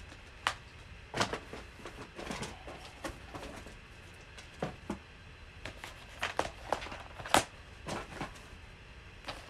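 Plastic Blu-ray and DVD cases being handled and moved: scattered clicks and knocks, the sharpest about seven seconds in.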